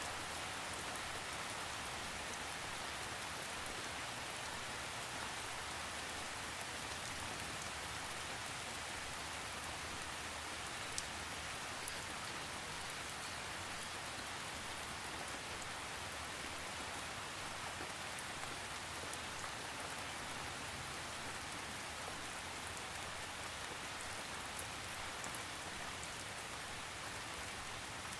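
Steady rainfall with no thunder, an even hiss of rain with scattered faint drop ticks.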